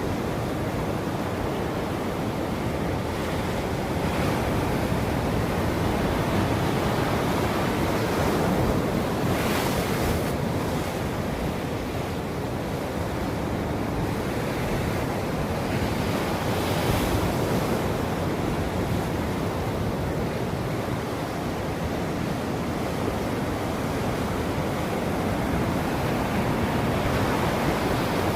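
Ocean surf: a steady wash of waves breaking and rushing on the shore, swelling and easing gently, with two brief hissing washes about ten and seventeen seconds in.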